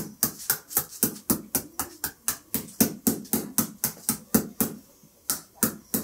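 Claw hammer striking a thin tin sheet band wrapped around the bound end of a coconut coir broom, held on a wooden block. Quick, even taps, about four a second, pause briefly about five seconds in, then a few more follow.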